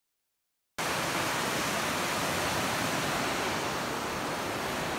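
Steady rush of the South Platte River, starting abruptly after a moment of silence about a second in.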